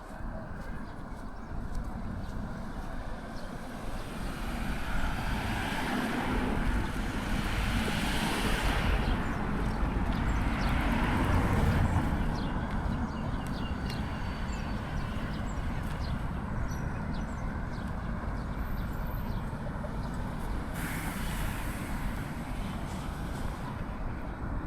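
Steady road traffic noise, swelling as a vehicle passes loudest about ten seconds in, with a hiss of about two seconds near the end.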